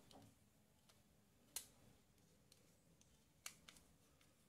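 Near silence with a few faint, sharp metallic clicks from a small screwdriver turning a screw that fixes a heat sink onto an amplifier board's IC: one click about a second and a half in, another near three and a half seconds with a couple of smaller ticks right after.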